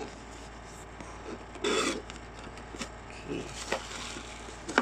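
Paper and cardboard packaging rustling and rubbing as the box holding a paper-wrapped mug is handled, with one louder rustle about two seconds in and a few shorter scrapes after it.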